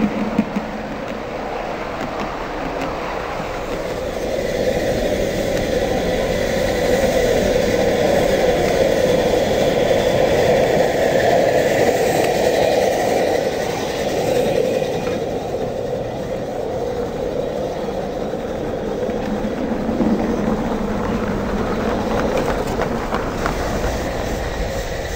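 16 mm scale live steam model train running past close by: a steady rumble of wheels on the track that swells as the train draws nearest and then eases off.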